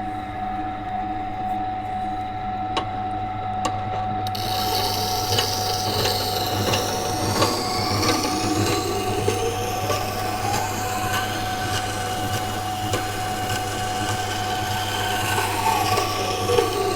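Electric water grinder running with a steady hum while its stone wheel grinds the bevel on a carbon-steel knife blade, with a gritty scraping that grows brighter about four seconds in and faint tones sliding up and down as the blade travels along the wheel.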